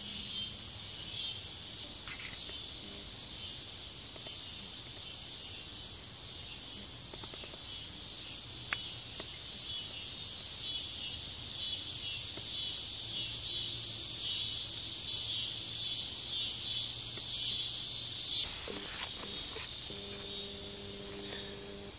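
Evening chorus of crickets and other insects in woodland: a dense, high-pitched shrilling with a pulsing rhythm that shifts about three-quarters of the way through.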